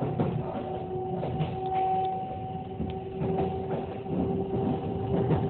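Kintetsu limited express train running between stations, heard from inside the passenger car: a steady rolling rumble with a continuous two-note whine and scattered clicks and knocks.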